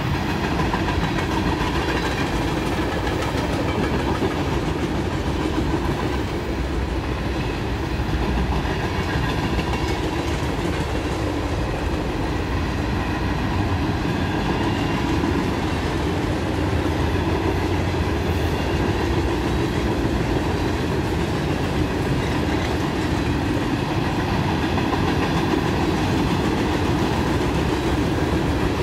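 Norfolk Southern freight cars (boxcars and covered hoppers) rolling past: a steady, unbroken noise of steel wheels running on the rails.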